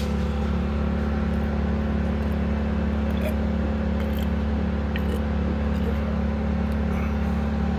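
A steady, unchanging low mechanical hum, with a few faint clicks over it.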